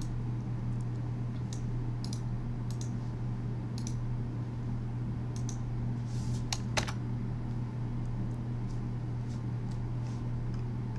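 Scattered keystrokes on a computer keyboard, irregular sharp clicks with a couple of louder ones about two-thirds of the way through, over a steady low hum.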